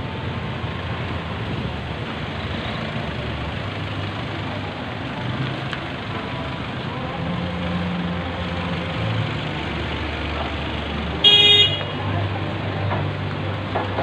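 City street traffic with vehicle engines running steadily, and one short vehicle horn honk about three quarters of the way through, the loudest sound.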